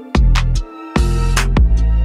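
Background music: deep, sustained bass notes under sharp percussive hits, with a hissing cymbal-like wash about a second in.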